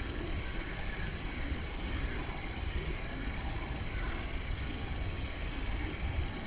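Steady low rumbling noise with a hiss over it, with no distinct events.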